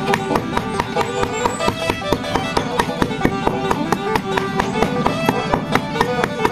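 Background music with a fast, steady beat and a bowed-string or reed melody.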